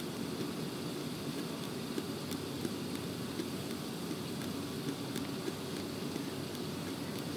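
Steady low noise, with a few faint small clicks scattered through it as a fine needle pierces the plastic film wrapped over a Bluetooth speaker's grille.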